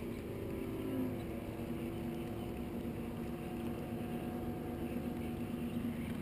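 A boat motor running with a steady hum, its pitch shifting slightly about a second in.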